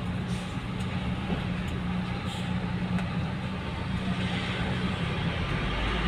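Car engine running at low revs as the car creeps forward, a steady low hum heard from inside the cabin.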